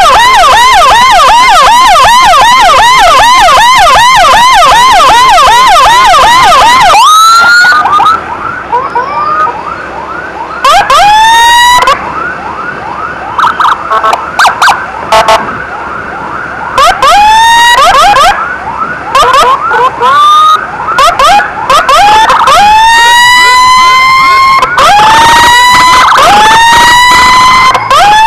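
Emergency siren on the ambulance escort, very loud. It sounds a fast warbling yelp for about seven seconds, then switches to short rising whoops, one after another, several of them cut off abruptly, with brief gaps between.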